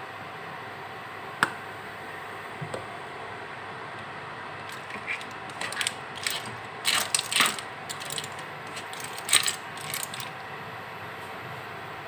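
A spatula tossing spaghetti and clams in a nonstick frying pan: clam shells clinking and clattering and the spatula scraping the pan, in a run of short bursts through the second half. A single sharp click comes about a second and a half in.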